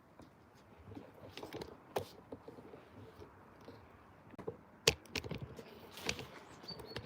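Irregular light clicks and crackles, about a dozen, with the sharpest a little under five seconds in.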